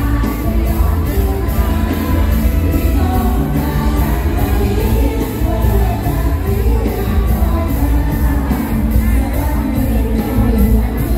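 Live mor lam band music in a lively toei style: a singer's voice over heavy bass and a steady, regular beat.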